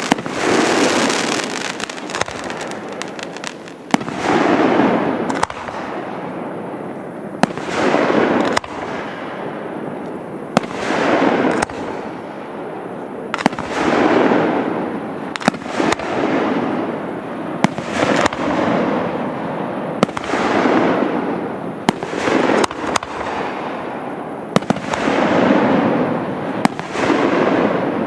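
Aerial fireworks bursting overhead: a sharp bang about every three seconds, each followed by a second or so of noise that swells and fades, with smaller cracks scattered in between.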